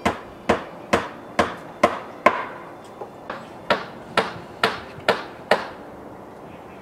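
Hammer blows on the edge of an asphalt-shingled wooden roof, about two a second, each with a short ring. There are six strikes, two light taps about three seconds in, then five more strikes.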